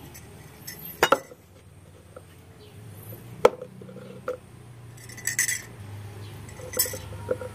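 Light knocks and clinks of a plastic tea strainer and a cup being handled and set against each other on a wooden table. A handful of short separate taps, the sharpest about three and a half seconds in.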